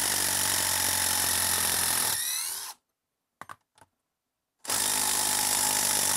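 Craftsman 20V brushless impact driver hammering steadily with its motor whine as it backs a long timber screw out of a log. It stops about two and a half seconds in, a couple of light clicks follow, and it starts hammering again about two seconds later on the next screw.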